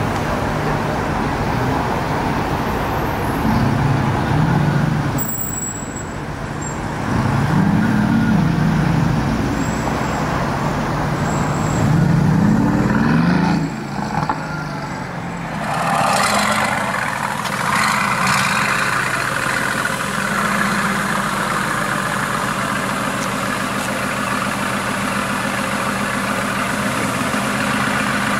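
Mercedes-AMG GT S's twin-turbo V8 revving in three or four rising and falling pulls as the car drives off. After about halfway the engine fades into steady city traffic noise.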